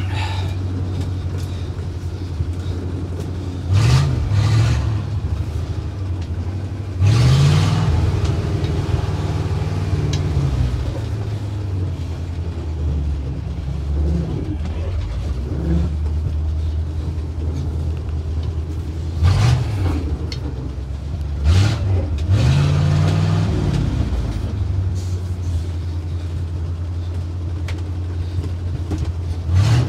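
1962 Ford C750 cabover's 332 Y-block V8 running as the truck drives. The engine revs up and drops back several times: about four seconds in, around seven seconds in, and twice around twenty seconds in.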